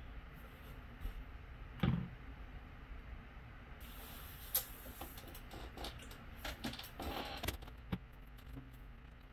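Quiet room with a few scattered soft taps and knocks, the loudest about two seconds in and a small cluster near the end, from a hand tapping a smartphone's touchscreen as it lies on a wooden desk.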